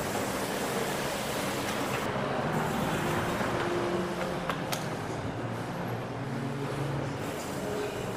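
A mountain bike rolling along a packed-dirt trail: a steady rush of tyre noise and wind on the microphone, with a low hum that wavers in pitch and a couple of sharp ticks about halfway through.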